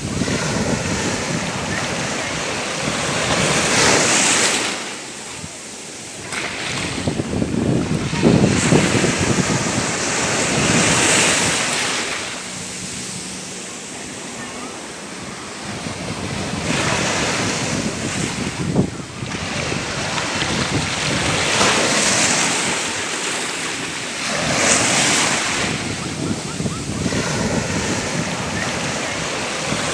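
Ocean waves breaking and washing up on a beach, surging and receding every few seconds, with some wind noise on the microphone.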